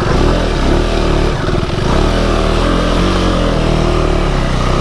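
KTM 390 Adventure's single-cylinder engine running under changing throttle while riding over rough, rocky ground, its pitch rising and falling.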